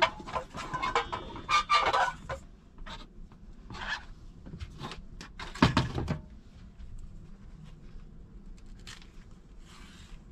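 Knife clicking and knocking against a cutting board as a banana is sliced lengthwise into thin strips: scattered light clicks, one louder knock about five and a half seconds in, then only faint handling.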